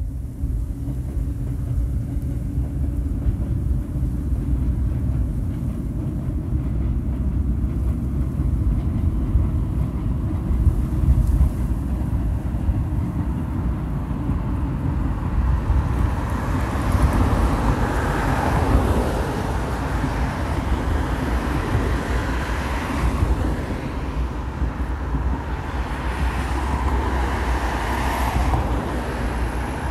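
Road traffic passing on a highway mixed with a Hokuso Railway 7500 series electric train running along the elevated track beside it. Over a constant low rumble, several vehicles swell up and fade in the second half.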